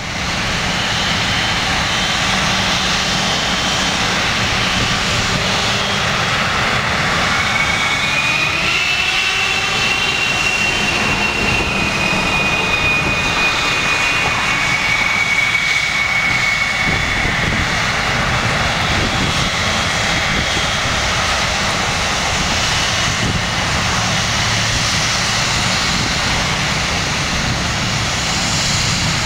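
General Electric GE90 jet engines of a Boeing 777-200 spooling up, a constant engine rush with a high screeching whine that rises in pitch about six to ten seconds in and then holds steady.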